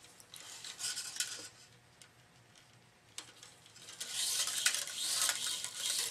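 Tennis racket string being drawn through the frame's grommets and across the other strings: a hissing rub as the long length slides through, loudest from about four seconds in, with light clicks and taps.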